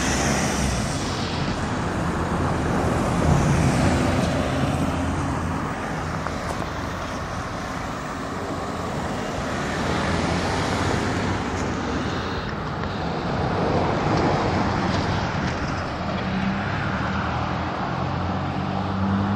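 Road traffic: cars passing on a two-lane road, the sound swelling as each one goes by and fading again.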